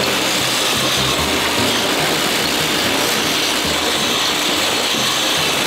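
Vibratory bowl feeder shaking a load of metal rivet screws along its spiral track: a steady, dense metallic rattle and clatter of screws jostling in the bowl.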